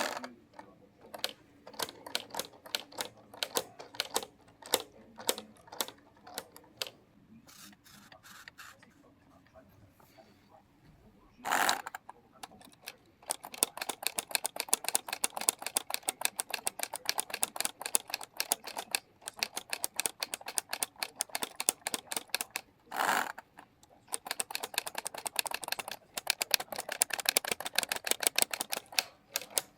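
Plastic keys of a LEGO Ideas 21327 Typewriter model clacking as they are pressed, scattered at first and then in fast, dense runs like typing. Two short rasping sounds, about 11 and 23 seconds in, break up the runs.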